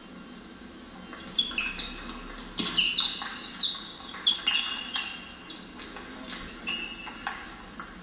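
Table tennis rally: the ball clicking sharply and irregularly off bats and table, with short high squeaks from sports shoes on the hall floor. It starts about a second and a half in and dies away near the end.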